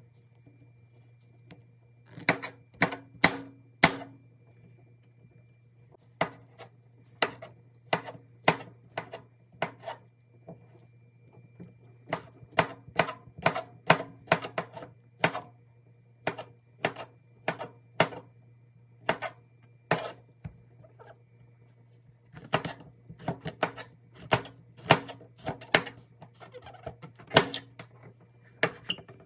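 Global chef's knife cutting through giant funnel mushroom stems and caps, each stroke ending in a sharp tap on a plastic cutting board. The taps come in runs, two or three a second, with short pauses between.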